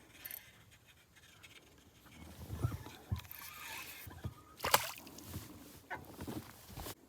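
Water sloshing against a bass boat's hull, with scattered low knocks and handling sounds on the boat. A sharp click a little under five seconds in is the loudest.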